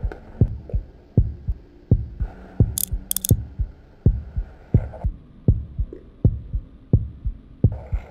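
A heartbeat sound effect on the soundtrack: low, even thumps in lub-dub pairs, about three thumps a second. Two short hisses cut in about three seconds in.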